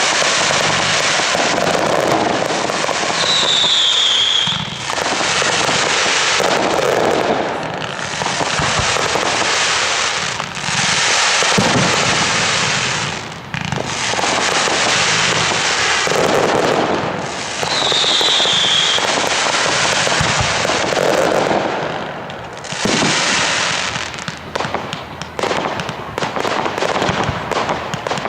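A fireworks display going off continuously: dense crackling and bursting shells that swell and ease in waves. A short falling whistle sounds twice, and the crackling turns sharp and rapid near the end.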